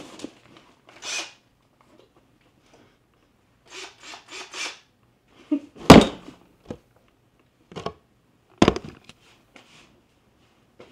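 Hands rummaging through a soft fabric tool bag: rustling and shuffling, with tools knocking and clunking together. The loudest, sharpest knock comes about six seconds in, and another near the nine-second mark.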